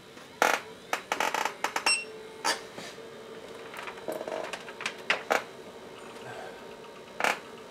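Cables and connectors being plugged in and handled at the back of a computer setup: a series of plastic and metal clicks and knocks, with a quick run of clicks about a second in, over a faint steady hum.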